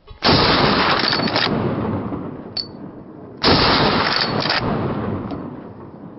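Two rifle shots about three seconds apart, each followed by a long echo dying away across the mountainside, with a short click between them.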